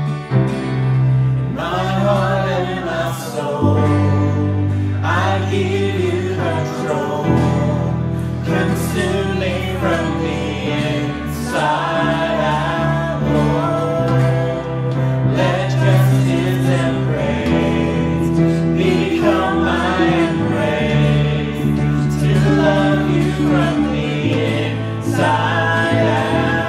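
Christian worship song: voices singing a melody over instrumental backing with sustained bass notes that change every few seconds.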